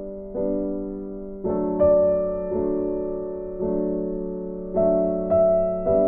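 Background music: slow, soft piano chords, a new chord struck roughly once a second and each left to fade.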